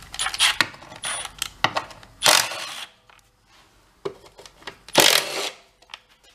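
Tools and metal parts clinking and knocking during work on a lawn mower as a belt cover is taken off, with two short harsh bursts, one about two seconds in and one about five seconds in.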